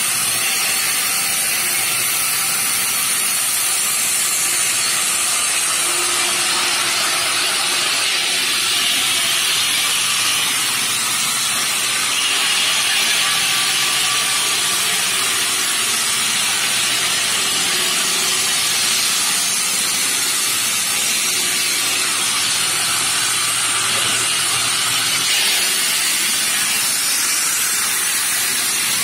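Bridge saw's circular blade cutting granite slabs under a water-cooling spray: a steady high hiss of blade and water, with a faint low machine hum underneath.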